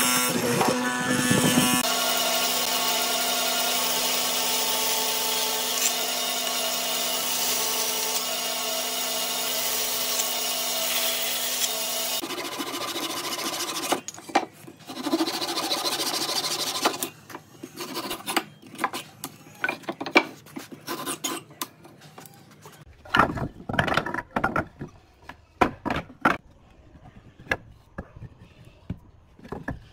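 Hollow-chisel mortising machine running steadily as its chisel bores into wood, then a hand saw cutting wood in strokes, then scattered light knocks and taps of wooden pieces being handled.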